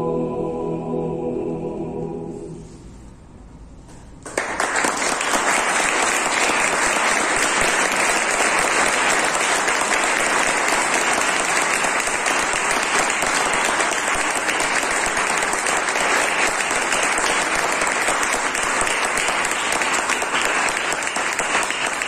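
A chamber choir's final held chord, which fades out about two seconds in. After a short pause the audience breaks into applause about four seconds in, and the clapping stays steady and loud to the end.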